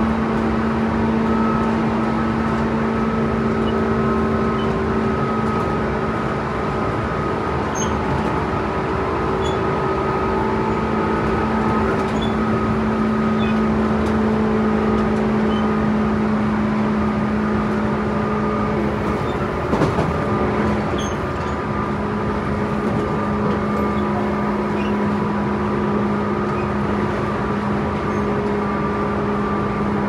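Running noise inside a Tobu 10030 series electric train car cruising at speed: a steady rumble of wheels on rail under a constant hum. About two-thirds of the way through comes one brief louder rush.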